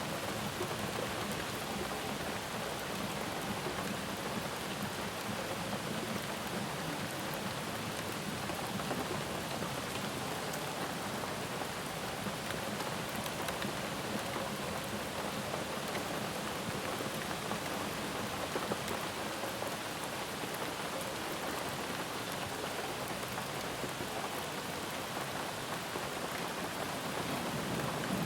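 Steady rain falling, an even hiss of drops with fine ticks of individual drops landing on a surface.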